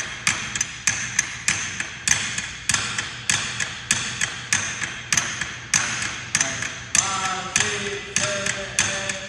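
Drumsticks playing a snare-drum warm-up of evenly spaced strokes, about three a second, with some strokes accented. The strokes echo in the gym hall.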